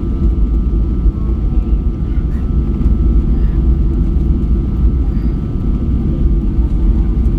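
Airliner cabin noise on the ground after landing: a steady, loud jet-engine rumble with a thin steady whine above it.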